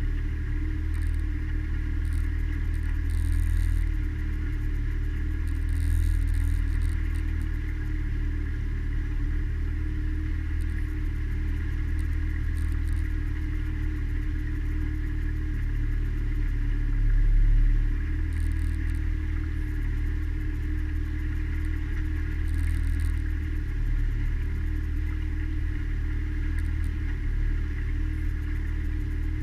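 Mariner outboard motor running steadily, driving the boat along: a constant low engine drone with a steady hum, swelling briefly just past the middle.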